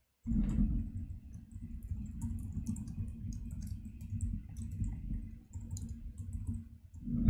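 Computer keyboard typing: a fast run of key clicks starting about a quarter second in, over a steady low rumble.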